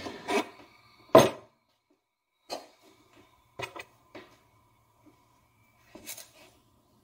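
A filled glass mason jar handled on a countertop: a few short knocks and clinks of glass on hard surfaces, the loudest about a second in as it is set down.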